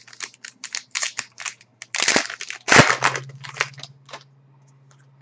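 Cardboard trading cards being flicked and slid past one another in the hands: a quick run of crisp clicks and rustles, with one sharper knock about three seconds in, dying down after about four seconds.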